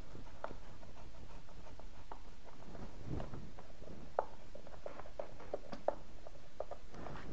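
Light clicks and scrapes of a plastic plug-socket faceplate being pushed back onto its wall box and lined up with a screwdriver, with two sharper clicks about four and six seconds in.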